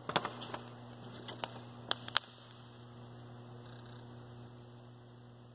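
Steady low electrical hum, with a handful of short, sharp clicks and crinkles of a paper worksheet being handled close to the microphone in the first two seconds or so.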